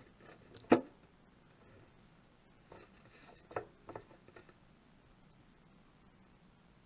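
Handling noise from a camera being moved and set down: a sharp knock about a second in, a few softer knocks and clicks a couple of seconds later, then quiet room tone.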